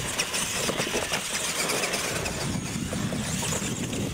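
Radio-controlled monster trucks racing on a concrete lane: their motors running and their tyres rolling on the pavement.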